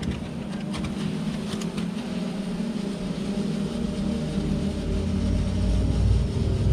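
Several ground firework fountains spraying sparks with a steady rushing roar and a deep rumble that grows louder, with a few sharp pops in the first two seconds.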